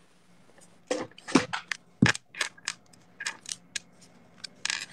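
Handling noise close to a phone's microphone: an irregular run of sharp crackles and taps as a passport is picked up and held out, starting about a second in.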